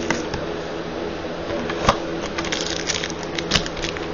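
Trading-card box and foil-wrapped pack handled on a stone countertop: light handling noise with a few sharp clicks, the clearest about two seconds in and again about three and a half seconds in, over a steady background hum.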